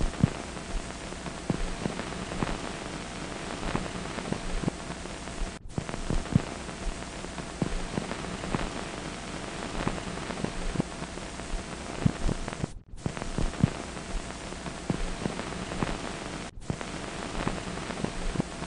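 Hiss and crackle of an old optical film soundtrack: a steady noise scattered with small clicks and pops, under a faint hum. It cuts out completely for a moment three times.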